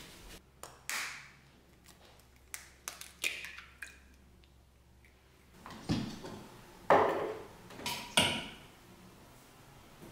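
Scattered light knocks and clinks of kitchen handling: a glass jar, ceramic bowls and utensils set down and touched, several with a short ring. The loudest come about six to eight seconds in.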